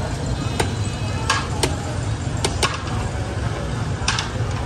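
Sharp clacks of kitchen utensils at a street food stall, about six of them at irregular spacing, over a steady low rumble of street noise.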